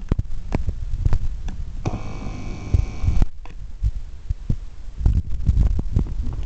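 Cats scuffling in and against a curtain: a run of dull thumps and sharp knocks, with one harsh sustained sound lasting a little over a second about two seconds in.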